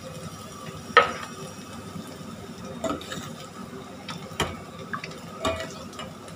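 A steel ladle stirs dal in a stainless steel pot, knocking against the pot a few times with short metallic clinks that ring briefly.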